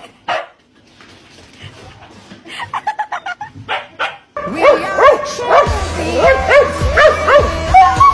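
A dog gives a few short barks or yips. About four seconds in, loud music with a bass line starts suddenly.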